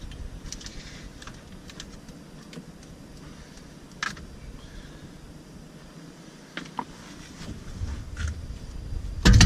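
Plastic center dash trim of a 2015 Subaru WRX being pried off by hand: scattered faint clicks and creaks, then a loud snap about nine seconds in as the trim pops free.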